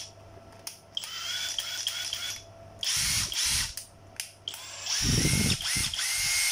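Makita brushless cordless impact driver running free in several short trigger pulls, its motor whine rising as it spins up each time.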